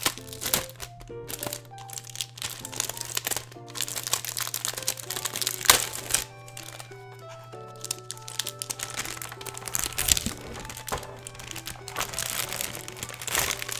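Thin clear plastic protective film crinkling and crackling irregularly as it is peeled off a keyboard, with one louder crack about six seconds in. Background music plays throughout.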